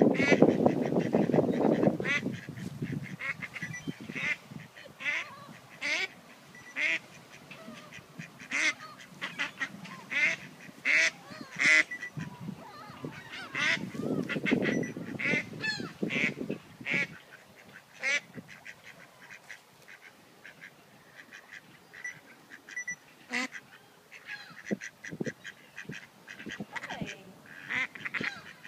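Mallard ducks quacking: many short, clipped calls in runs, with a quieter spell after the middle. A loud low rushing noise comes briefly at the start and again about halfway through.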